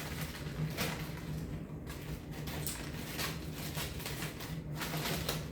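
Packaging and items being handled, giving short scattered rustles about once a second over a steady low hum.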